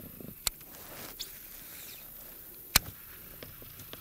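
Two sharp clicks about two seconds apart, the second much louder, with a fainter high click between them, over a faint steady hiss.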